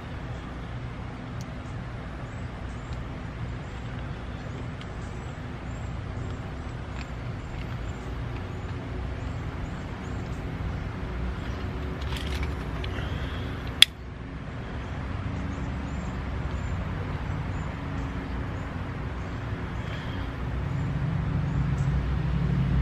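A steady low rumble of background noise, heavier in the last couple of seconds, with one sharp click about fourteen seconds in and faint high chirps repeating every few tenths of a second.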